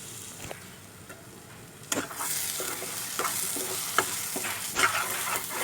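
Onion and ginger–spice paste frying in oil in a pan. About two seconds in, as the lid comes off, the sizzling gets suddenly louder, and a spoon stirs and scrapes the pan with sharp clicks.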